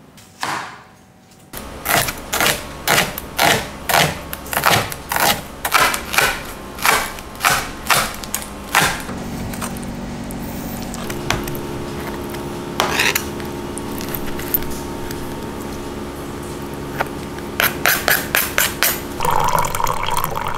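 A kitchen knife chopping on a cutting board, steady strokes about twice a second for several seconds. A steady hum follows, with another quick run of chops near the end.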